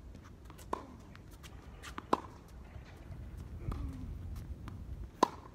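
Tennis rally on a hard court: three sharp pops of racquet strings striking the ball, a little under a second in, about two seconds in and near the end, with softer ball bounces and footsteps between.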